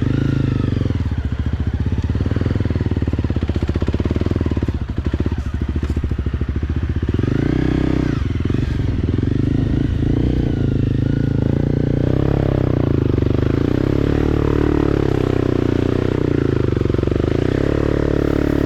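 Motorcycle engine running continuously, its pitch shifting up and down with the throttle as it climbs.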